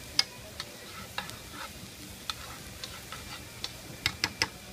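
A metal spoon stirring and clicking against a stainless steel frying pan as chopped onion, garlic and bell peppers fry in olive oil, with a low sizzle underneath. The clicks come irregularly, with three quick ones close together near the end.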